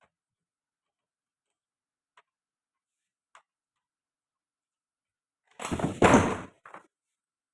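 Two faint clicks, then about six seconds in a loud, noisy clatter lasting under a second, followed by a short, softer knock.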